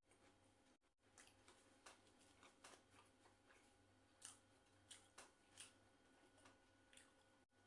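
Near silence with faint, scattered small clicks and crackles of eating by hand: Arabic flatbread being torn and chewed, fingers at the plate.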